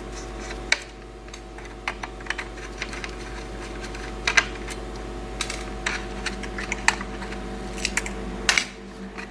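Irregular light clicks and taps of laptop parts being handled as the motherboard is lifted out of the laptop's case, over a steady hum that stops near the end.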